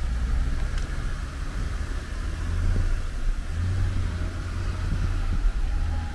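Jeep engines running under load as one Jeep tows another out of deep snow on a recovery strap.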